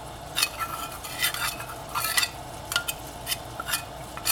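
Metal spoon stirring cornstarch slurry in a small stainless steel bowl, clinking and scraping metal on metal about twice a second, some strokes ringing briefly.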